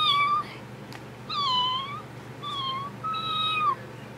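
A cat meowing four times in quick succession, each call a short pitched cry.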